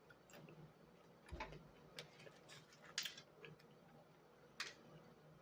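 Near silence with a few faint, scattered clicks and a soft knock about a second in, the small sounds of someone eating a fast-food meal at close range.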